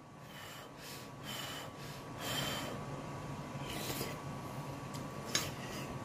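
A person eating ramen: several short, noisy slurps of the noodles with chewing between them.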